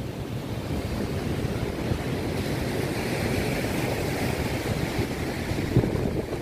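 Heavy cyclone-driven surf breaking on the shore, a steady rushing noise, with wind blowing across the microphone.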